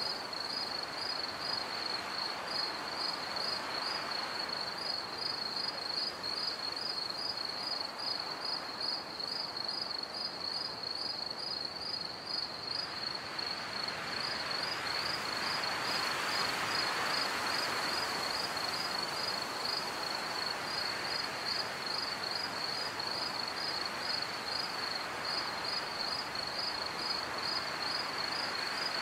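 Crickets chirping in a steady, even run of high pulses over a soft hiss of background noise that swells briefly in the middle.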